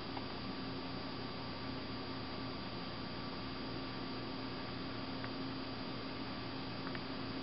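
Steady electrical hum with hiss, and a few faint soft ticks.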